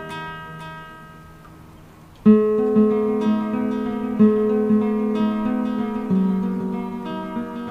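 Acoustic guitar soundtrack music. A chord rings and fades for about two seconds, then a new passage of picked notes starts and carries on.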